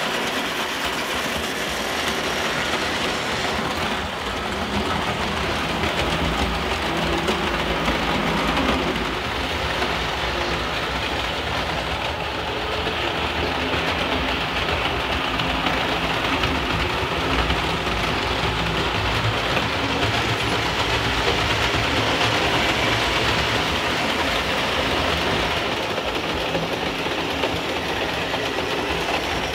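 Several vintage Märklin H0 model trains, among them the E91 (BR 191) electric locomotive with hopper cars, running on pressed-steel M-track: a steady mechanical running noise of motors and wheels on the metal track.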